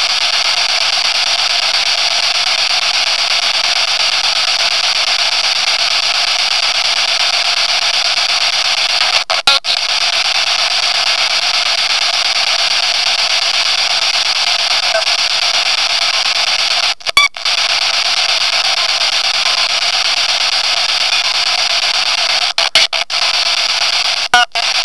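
Steady loud hiss of static used for spirit-voice (EVP) listening, broken by brief drop-outs with sharp clicks about nine seconds in, about seventeen seconds in, and twice near the end.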